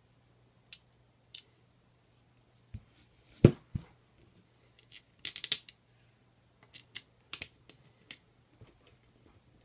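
Clicks and light knocks of a plastic Ruger BX-25 magazine and its bandolier shell holder being handled, with one louder knock about three and a half seconds in as the magazine is laid down on the table, then small screws and an Allen wrench clicking against the plastic.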